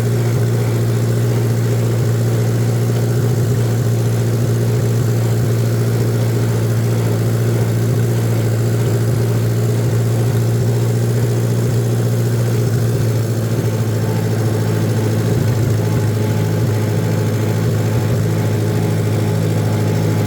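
Farmall A tractor's four-cylinder engine running steadily.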